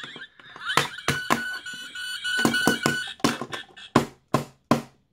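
A hollow plastic action figure knocked against a wooden desk about ten times in irregular hard knocks, in an attempt to jolt its dead light-and-sound electronics into working. A steady electronic tone sounds under the knocks for about two seconds.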